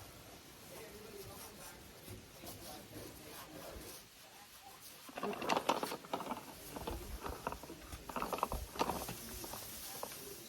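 Thin plastic masking sheet being handled, rustling and crinkling in irregular bursts from about halfway in until just before the end.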